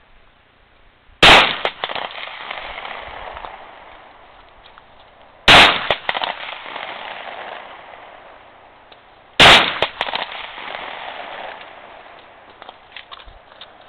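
Three loud gunshots about four seconds apart, each followed by a long rolling echo that fades over a few seconds.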